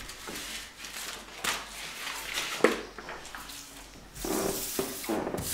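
Irregular rustling and handling noises, with one sharp click about two and a half seconds in.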